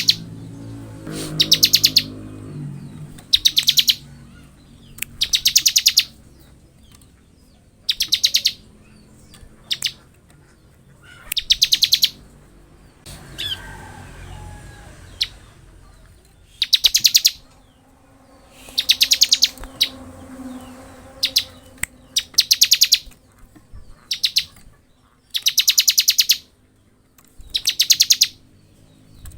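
Bar-winged prinia (ciblek) singing its rapid, buzzing 'ngebren' trill in repeated high-pitched bursts, each under about a second long, about every two seconds, with a couple of longer pauses.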